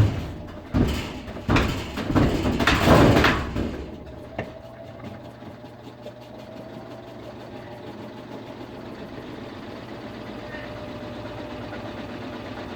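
Admiral washing machine shaking hard with a series of loud knocks for the first three seconds or so. It then settles into a steady running hum with a faint whine. The machine has been reported for excessive vibration.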